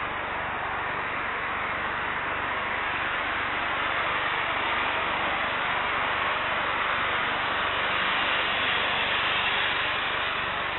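Taxiing Airbus A320neo's Pratt & Whitney geared turbofan engines at low thrust, a steady hiss that grows slightly louder through the middle and eases off near the end.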